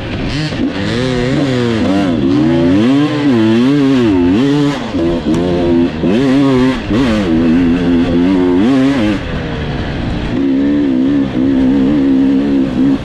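Enduro dirt bike engine heard from on board, revving up and down over and over as the throttle is worked along a rough forest trail, the pitch rising and falling every second or so. Near the end it settles into a steadier run.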